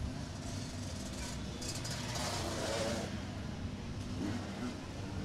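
Motocross dirt bike engines running on the track. About two seconds in, one bike revs up and down.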